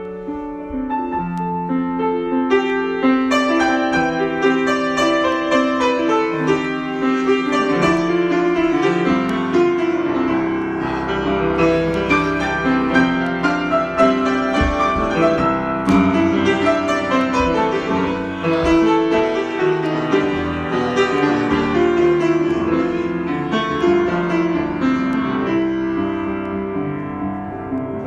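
Solo piano improvisation played continuously, with many overlapping notes and chords.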